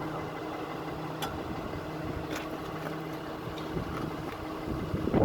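A steady motor hum with a few faint light clicks. The hum stops about four seconds in.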